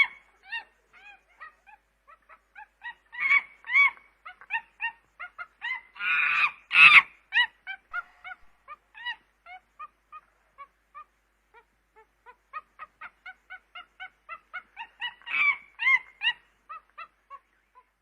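Chimpanzee calls: a long run of short, high, arching hoots, several a second, broken by louder, harsher calls three times, about a quarter of the way in, around the middle and near the end.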